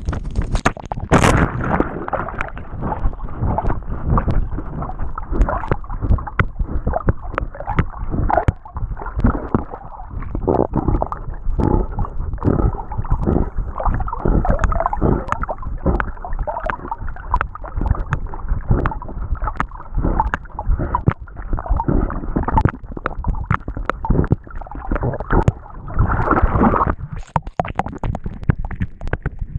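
Water sloshing and gurgling around a dog-mounted chest camera as the dog swims, with a steady run of splashes from its paddling strokes.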